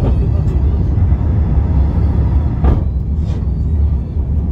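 Cabin noise of an Airbus A350-900 climbing after takeoff, heard from a seat behind the wing: a steady deep engine rumble mixed with airflow noise. There is a short click about two and a half seconds in.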